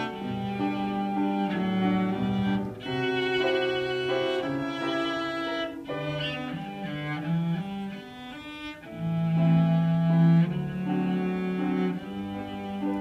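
Cello played with the bow over a grand piano accompaniment: a melody of long held notes, loudest about nine to ten seconds in.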